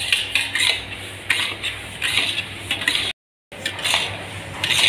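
A spatula scraping around a metal pot, stirring roasted semolina and sugar in ghee in repeated quick strokes. The sound cuts out briefly a little past three seconds in.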